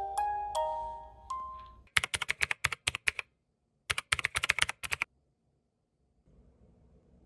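A few chiming glockenspiel-like music notes die away, then two quick runs of keyboard-typing clicks, each about a second long: a typing sound effect laid under closing text appearing letter by letter. Faint room tone comes in near the end.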